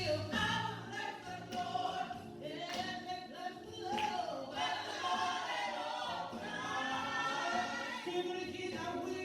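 Church choir singing a gospel praise song, voices in harmony with long held notes.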